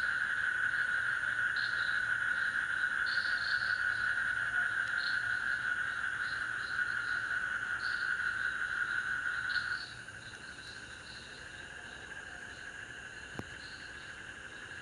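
Night insect chorus: a steady, high cricket trill with scattered higher chirps over it. It drops noticeably quieter about ten seconds in.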